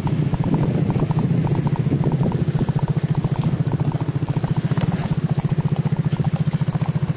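Motorcycle engine running at low speed, a steady, rapid, even pulsing throb, as the bike rolls slowly along.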